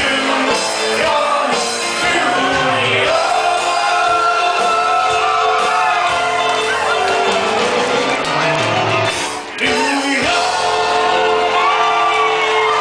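Live bar-band music with several women singing loudly, with shouts and whoops. The music and singing drop out briefly about nine and a half seconds in.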